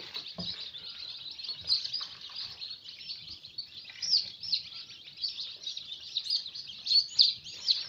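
Many newly hatched chicken chicks peeping continuously inside an incubator, a dense chorus of short high chirps, with a few soft knocks from the egg trays being handled.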